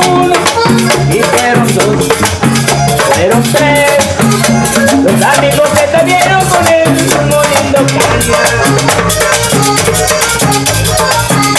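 Vallenato band playing an instrumental passage: a melody over bass and drums, with a steady shaken percussion rhythm.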